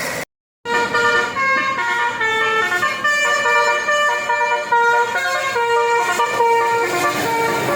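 Basuri multi-tone musical horn (telolet) playing a melody of short stepped notes, several horn tones sounding together and changing pitch every fraction of a second. The sound drops out completely for about half a second near the start.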